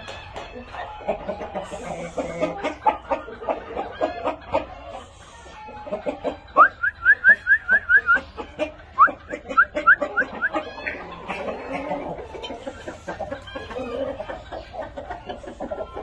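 Shamo chickens clucking in a pen, with a quick run of short, rising high-pitched calls from about six to eleven seconds in.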